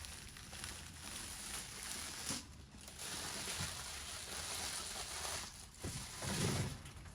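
Gift packaging rustling as it is handled and unwrapped, in two long stretches with a short break about two and a half seconds in, then a low bump near the end.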